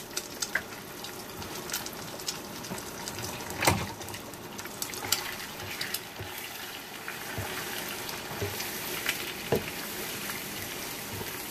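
Three eggs frying in hot butter in a frying pan, sizzling steadily. A spatula breaks them up and stirs them, with a few clicks and scrapes against the pan, the loudest a little under four seconds in.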